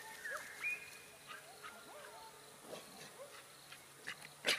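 Outdoor birdsong: scattered short chirps and whistles over a faint steady insect drone, with a sharp tap near the end.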